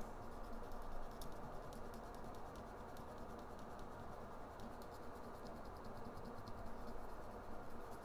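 Faint scratchy scrubbing as a BGA chip's solder pads are rubbed clean, with many small ticks over a light steady hiss.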